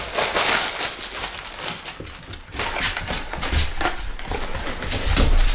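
Clear plastic wrapping crinkling and rustling as it is handled and pulled off a helmet, with a couple of dull low thumps in the second half.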